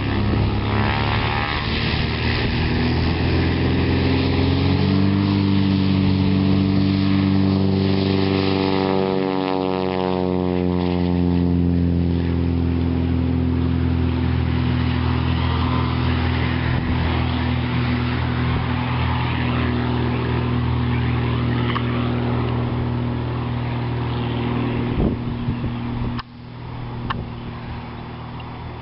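Van's RV-10 light aircraft at takeoff power, the steady drone of its piston engine and propeller rising in pitch as it rolls toward the listener, then falling in pitch as it passes and lifts off. About 26 seconds in the sound drops off suddenly and carries on fainter as the plane climbs away.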